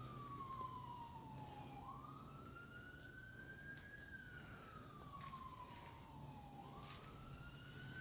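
A faint emergency-vehicle siren wailing, its single tone slowly falling and rising in a cycle of about five seconds.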